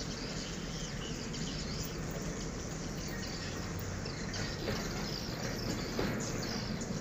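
A large flock of swiftlets chirping and twittering at once, a dense continuous chatter of many overlapping high calls, over a low steady hum.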